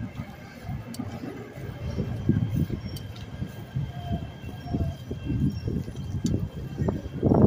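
Wind rumbling over the microphone and bicycle tyres rolling on asphalt while riding: an uneven, gusting low rumble that swells to its loudest near the end.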